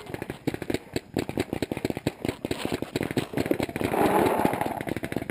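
Dense, rapid crackling and rustling of dry grass and brush close to the microphone as someone shifts and handles gear, louder about four seconds in.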